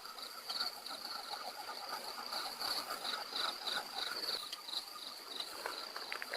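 Night insects, crickets, chirping in a steady pulsing trill. Under it runs a fainter rapid series of lower notes, which the listeners hear as laughter.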